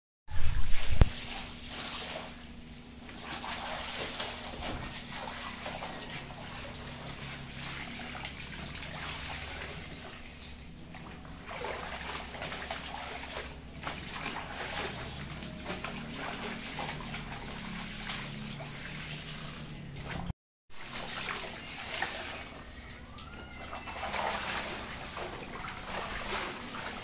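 Clothes being washed by hand in a plastic basin of soapy water: continuous sloshing and splashing as the garments are swished, rubbed and squeezed, with a loud bump about a second in and a brief cut-out about two-thirds of the way through.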